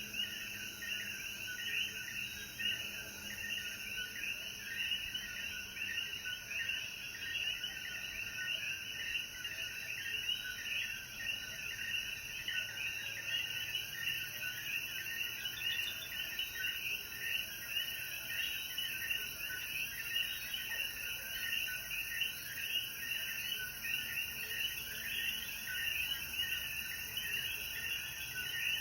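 Dense night chorus of Puerto Rican coquí frogs, many overlapping short chirping calls repeating steadily, over a faint high hiss.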